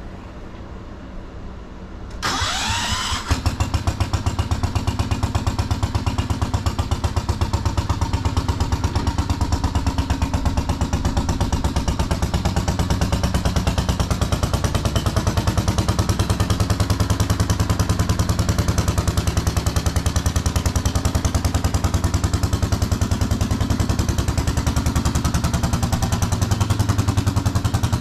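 The 1973 Wheel Horse garden tractor's 10 horsepower Kohler single-cylinder engine is cranked by its starter for about a second, catches about three seconds in, and then runs steadily with a fast, even beat.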